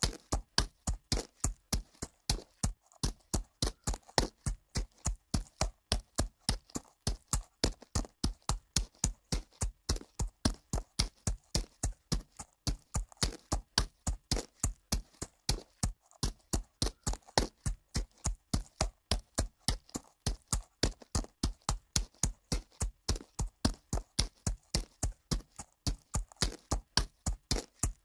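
Horse walking on dirt: a steady, even run of hoofbeats, about three a second.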